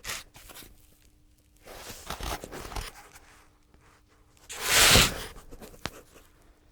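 Rustling and crinkling handling noise, with a louder rustle about five seconds in and a sharp click just after.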